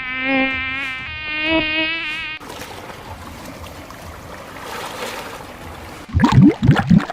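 A string of separate sound effects. First comes a buzzing tone that wavers in pitch, in two stretches of about a second each, like a flying insect's buzz. Then an even hiss-like noise runs for about three and a half seconds, and about six seconds in a run of quick rising bubbly bloops begins.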